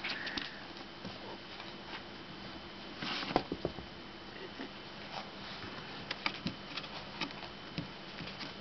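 Kittens scrabbling and clawing at a cardboard fire-engine cat playhouse: scattered light scratches and taps, with a busier flurry of scratching and knocks about three seconds in.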